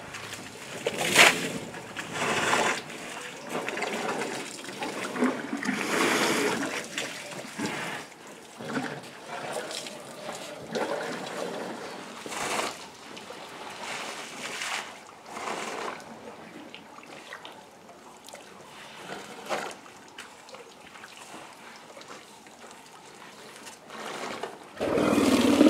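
Elephants drinking at a muddy waterhole: water splashing and trickling in irregular bursts as trunks draw up and spill water, with a louder burst near the end.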